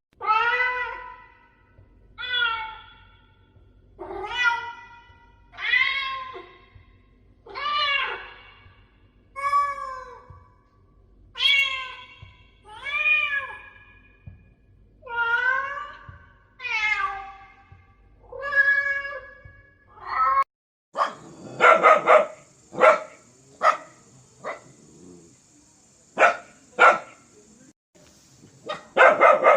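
Domestic cat meowing over and over: about a dozen drawn-out meows, each rising and then falling in pitch, roughly one every one and a half seconds. About twenty seconds in, the sound changes abruptly to a run of shorter, clipped calls over a faint, steady high whine.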